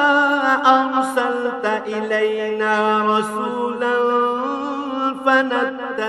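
A man chanting the Quran in Arabic in melodic tajweed style, holding long wavering notes with slow turns of pitch.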